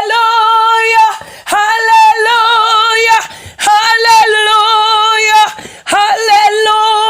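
A woman singing unaccompanied, holding long notes with a wide vibrato in phrases of one to two seconds, with short breaks for breath between them.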